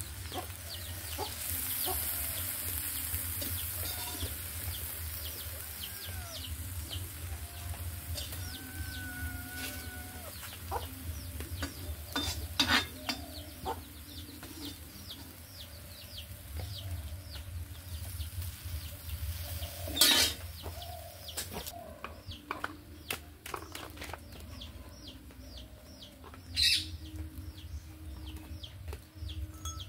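Chickens clucking around the yard over the faint sizzle of small fish frying in oil in an iron pan on a wood fire, with three sharp knocks, about twelve, twenty and twenty-seven seconds in.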